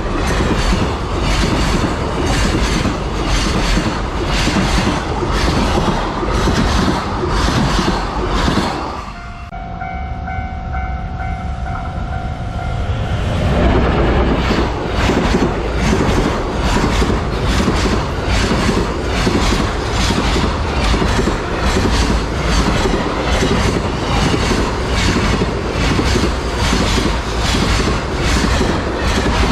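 Freight trains hauled by EF210 electric locomotives passing over a level crossing: a loud, steady clatter of wheel clicks over the rail joints, about two a second. About nine seconds in the clatter breaks off, and a quieter, steady ringing of the crossing's warning signal is heard for a few seconds. After that a second freight train passes with the same rhythmic clatter.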